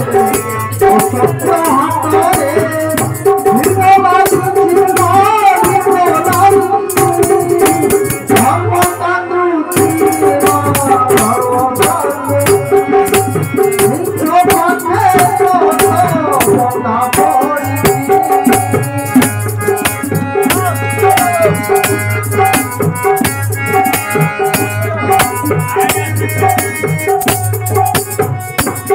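Live devotional bhajan: a harmonium holding steady notes under a singing voice, with a hand drum and dense rattling percussion keeping the beat. The voice is heard mostly in the first half, and the second half is more instrumental.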